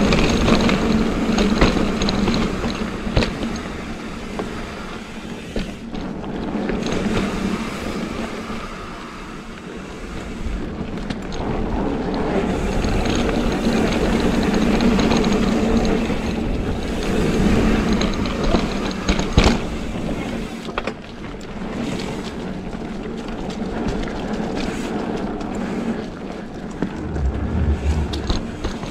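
A Trek Slash 8 full-suspension mountain bike rolling fast down a dirt trail: a steady rushing rumble from the tyres on dirt, broken by frequent short clicks and rattles from the bike over bumps, louder and softer as the speed changes.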